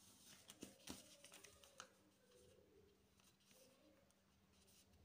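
Faint rustling and creasing of a sheet of A4 printer paper being folded by hand, with a cluster of light crackles and taps in the first couple of seconds, the sharpest about a second in.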